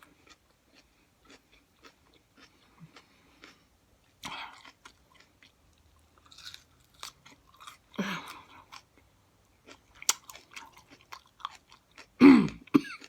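Close-up chewing of a raw hot pepper: wet mouth clicks and crunching throughout. A short hummed "mmm" about eight seconds in, and a louder one falling in pitch near the end.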